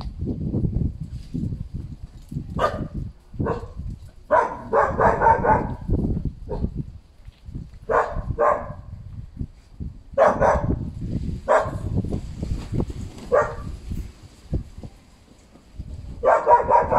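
Canaan dogs barking in short bursts during rough play, about ten barks, some in quick pairs and clusters, over a steady low rumble.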